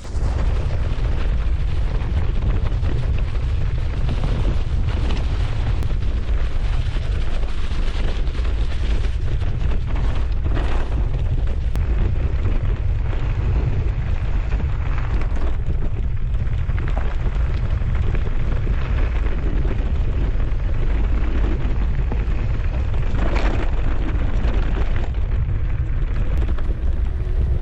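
Heavy wind buffeting on the microphone of a camera riding along on a fast mountain-bike descent: a steady low rumble with trail noise over it and a few sharper knocks, about ten seconds in and again near 23 seconds.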